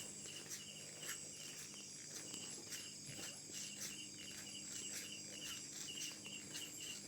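Insects chirping: short chirps repeating several times a second over a faint high hiss.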